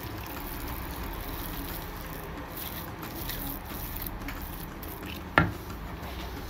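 Wooden spoon stirring and pressing thick rava kesari in a non-stick pan: soft, squishy scraping. One sharp knock about five seconds in.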